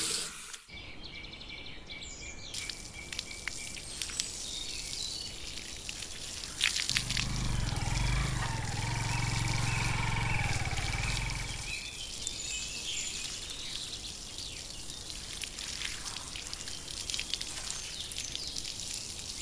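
Water from a garden hose spraying and splashing onto plants: a steady hissing spray that grows louder, with a low rumble under it, for a few seconds midway.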